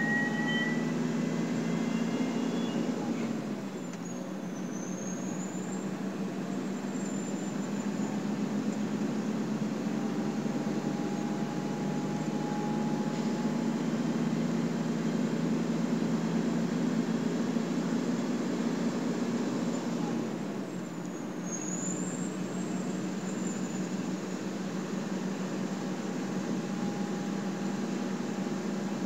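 Turbocharged Cummins 350 diesel in a Kenworth T600 truck running on the road with a high-pitched turbo whistle over the engine drone. Twice, about three and a half seconds in and again about twenty seconds in, the engine note drops and the whistle dips and climbs back up.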